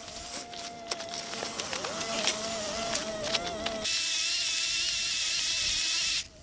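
DeWalt 12-inch cordless electric chainsaw running with a steady whine and scattered clicks. About four seconds in it gets much louder and steadier, then cuts off suddenly just before the end.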